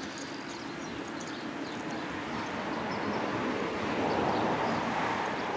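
A vehicle passing on the nearby road: a steady rush of traffic noise that swells to its loudest about four seconds in and then eases a little.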